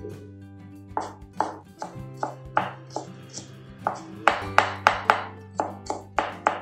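Chinese cleaver chopping ginger into thin strips on a thick round wooden chopping board: a run of sharp knocks, about two a second at first and quickening to about three a second after the halfway point. Background music plays underneath.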